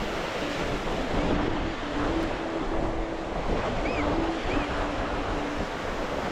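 Ocean surf breaking and washing on a sandy beach, with wind buffeting the microphone; two faint short chirps sound high above it about four seconds in.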